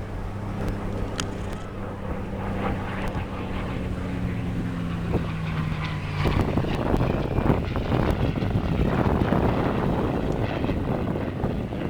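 A WWII fighter's V-12 piston engine droning overhead, its pitch slowly dropping as it passes. From about six seconds in, wind buffets the microphone and rough noise covers the engine.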